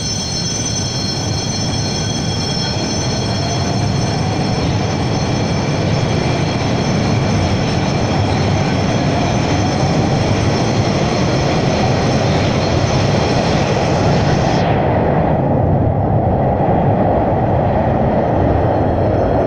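Metrovagonmash 81-760 metro train pulling out of the station and speeding up past the platform. A steady high whine from its traction equipment sits over a rumble of wheels on rail that grows louder as the cars go by, with a faint whine rising in pitch in the middle. The high whine cuts out about fifteen seconds in.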